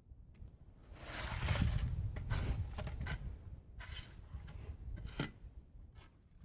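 Gritty scraping of a tool through concrete mix: a long scrape starting about a second in, then several short, sharp scrapes.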